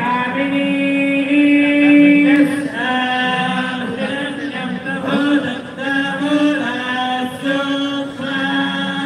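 Hindu devotional chanting sung in long held notes that step from one pitch to the next, during a temple-style puja ritual.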